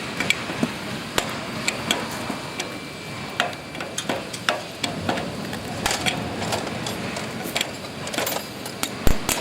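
Irregular metallic clinks and knocks of tools and parts being handled on a drilling rig, several a second, over a steady background noise, with one louder knock near the end.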